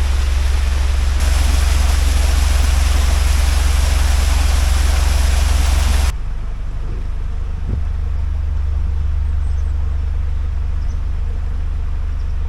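Narrowboat diesel engine running steadily with a low throb, under a loud rushing hiss that cuts off abruptly about six seconds in; after that the engine carries on more quietly, with a few faint bird chirps.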